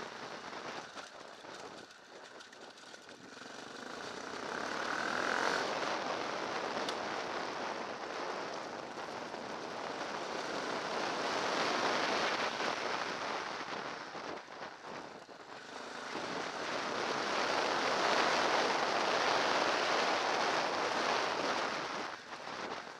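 Dirt bike ridden along a gravel track: engine noise mixed with wind rushing over the microphone, a dense roar that swells and fades several times.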